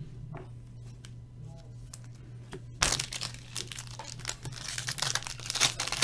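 A foil trading-card pack wrapper being torn open and crinkled, starting about three seconds in and getting louder toward the end, over a low steady hum.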